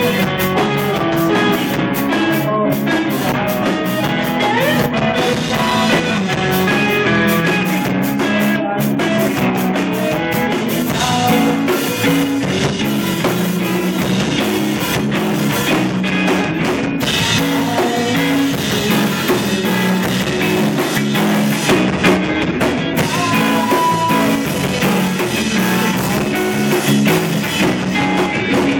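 Live rock band playing: electric guitar and drum kit, loud and continuous.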